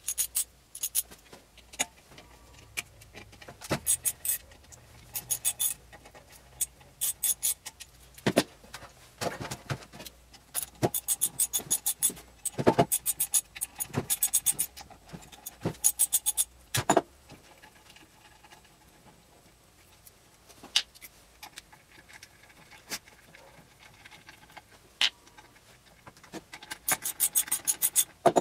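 Metal clicks, knocks and clatter as the housing of a dental x-ray head is handled and worked on in a stainless steel pan, with several short runs of rapid, evenly spaced clicks.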